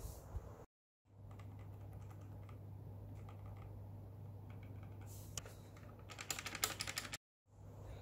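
Keys of an HP GK100 mechanical keyboard with Outemu Black linear switches being pressed, faintly at first, then a quick flurry of key clacks about five to seven seconds in.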